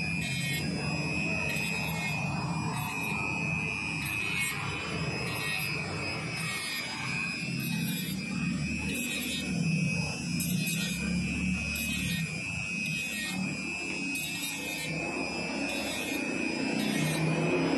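Small handheld rotary tool with a cutting disc running with a steady high whine as it grinds through a metal finger ring, water being poured on to cool the cut.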